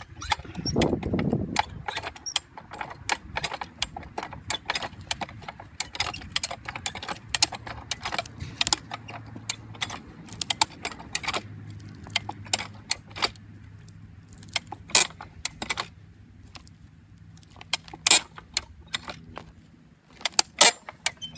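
Hi-Lift farm jack being pumped by its handle to pull a chained tree stump out of the ground: an irregular series of sharp metallic clicks and clanks from the jack's climbing mechanism on its steel bar and the chain around the stump.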